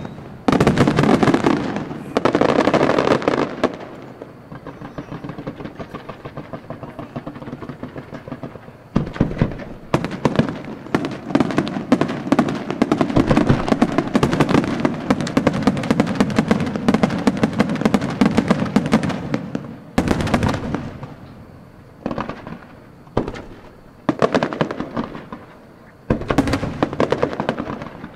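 Professional fireworks display: aerial shells bursting in rapid volleys with dense crackling. The reports ease to a softer crackle about four seconds in, build into a continuous barrage of bangs from about nine seconds, then break into separate short volleys in the last several seconds.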